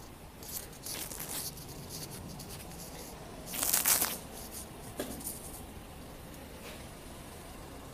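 Rustling and scuffing noises from the phone being handled while walking, with a louder rush of noise about three and a half seconds in and a sharp click about five seconds in.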